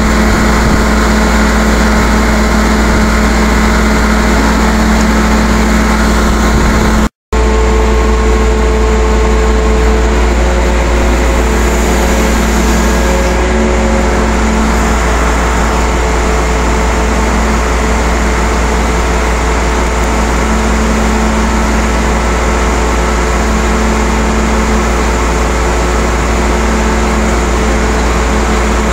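Mobile crane's engine running steadily during a lift, with a deep low hum. The sound drops out completely for a moment about seven seconds in.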